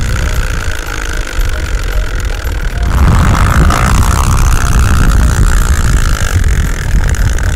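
A bicycle's DIY plastic-jar 'exhaust' buzzing against the rear wheel as the wheel is spun by hand-cranked pedals, sounding like a motorbike engine. It gets louder and faster about three seconds in.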